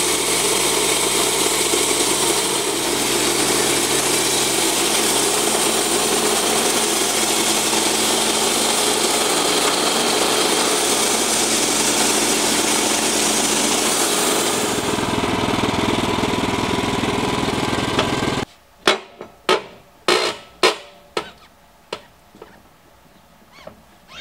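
Portable band sawmill running and cutting through a black cherry log, a steady loud drone whose tone changes about fourteen seconds in. It stops suddenly about eighteen seconds in, and a run of about seven sharp knocks follows over the next few seconds.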